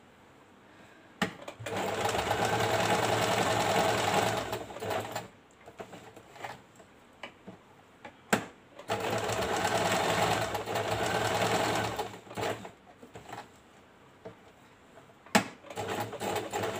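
Domestic electric sewing machine stitching along a marked line in three short runs, stopping between them while the fabric is turned. A sharp click comes just before each run.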